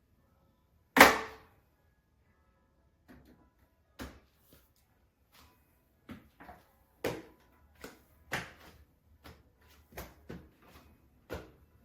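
A folding step stool being handled: irregular knocks and clacks, with one loud strike about a second in and about a dozen lighter ones later.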